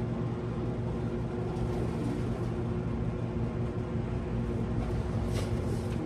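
A steady low mechanical hum with a few fixed tones, like a running motor or fan. A brief rustle sounds about five seconds in.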